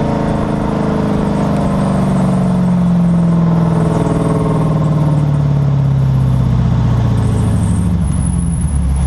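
2011 Dodge Charger rear end heard close up while driving: a pitched squeal and whine over road rumble, its pitch dropping steadily as the car slows. The owner has had the squeal from the rear end for over 5000 miles and fears something is about to snap.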